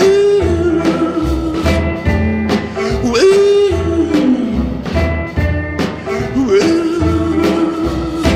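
Background music with a steady beat and a long, held lead melody that slides up into its notes.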